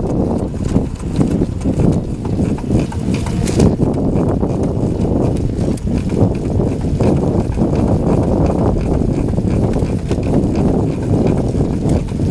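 Rear drive section of a Pride Celebrity X3 mobility scooter making a repeated banging tick as it drives, the fault noise that appears on level ground and uphill, under heavy wind noise on the microphone.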